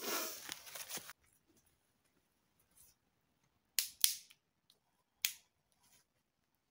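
A brief rustling hiss that cuts off about a second in. Then, after a hush, three sharp wooden cracks spread over a second and a half, as dry sticks are handled and fed onto a small campfire.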